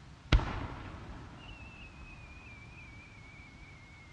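An aerial firework shell fires from its mortar with a sharp bang about a third of a second in. A whistle then falls slowly in pitch for a few seconds as the shell climbs.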